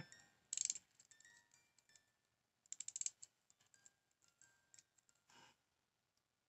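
Tiny music box from a miniature house craft kit, plinking out a few faint, sparse notes between two short bursts of rapid clicking about half a second in and around three seconds in.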